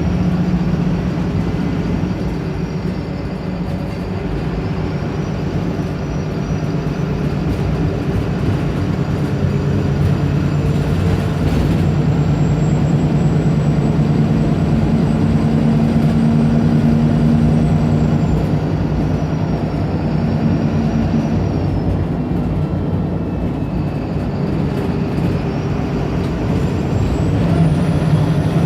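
Wright Pulsar single-decker bus engine running under way, its note shifting up and down with speed, with a faint high whine rising and falling alongside.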